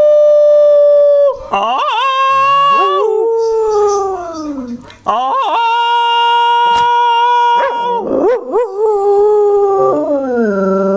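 Beagle-spaniel cross dog howling in a run of long drawn-out notes. Each note holds a steady pitch, then wavers or slides downward. There is a short break about five seconds in.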